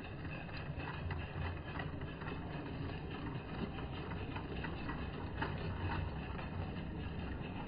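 Live-steam Bassett-Lowke Enterprise O gauge locomotive running with its carriages, heard slowed down: a low, steady rumble with faint irregular clicks.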